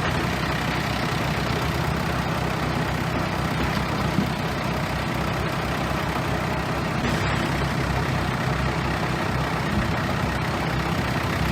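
Bulldozer's heavy diesel engine running steadily at a constant pitch.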